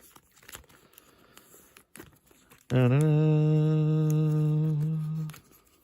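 A person humming one long, steady note for about two and a half seconds, starting near the middle. Before it, faint clicks and rustles of cards being handled.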